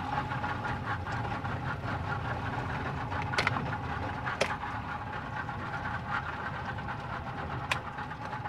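Boat engine idling steadily, with three short sharp clicks about three and a half, four and a half and seven and a half seconds in.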